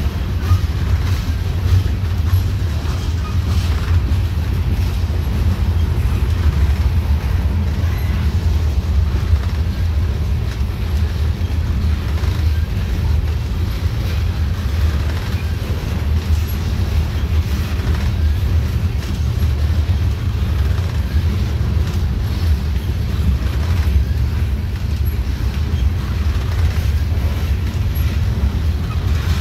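Freight train of covered hopper cars rolling past close by: a steady low rumble of steel wheels on rail, with faint scattered clicks.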